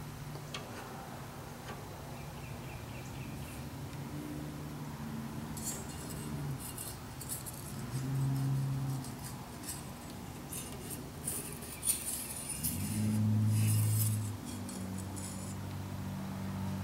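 Thin steel feeler gauge blades clinking and jingling against each other and a metal square as they are handled and slid into a gap, in scattered bunches of light metallic clicks. A low hum underneath shifts in pitch a few times.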